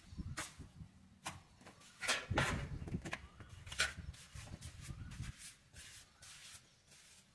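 Hand trowel scooping and spreading wet cement plaster on a brick wall: irregular short scrapes and slaps of steel on mortar, a few seconds apart.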